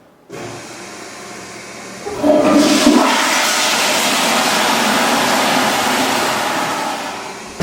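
Water rushing, quieter at first, then suddenly much louder about two seconds in and easing off slightly near the end.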